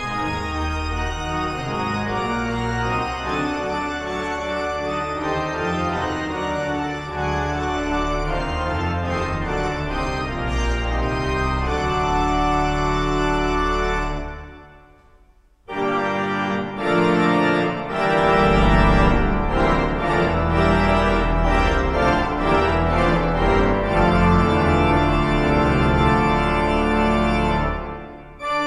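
Large pipe organ playing sustained full chords with a strong bass. About fourteen seconds in the playing stops and the sound dies away in the building's reverberation for a second or two. The organ then comes back in louder, and drops away briefly again near the end.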